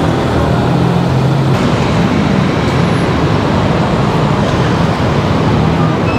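Busy city road traffic: a steady wash of car and motorcycle engines and tyre noise from passing vehicles, with a low engine hum underneath.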